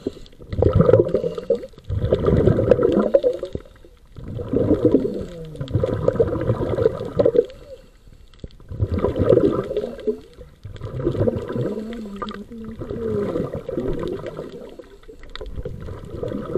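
Scuba regulator breathing heard underwater: exhaled air bubbling out of the regulator in repeated bursts a second or two long, with short quieter gaps for the inhalations between.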